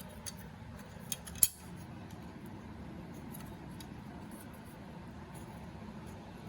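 A few small metallic clicks and taps, the loudest a sharp click about a second and a half in, from small screws and a screwdriver being handled while the SSD is screwed into the laptop's drive bay, over a steady low background rumble.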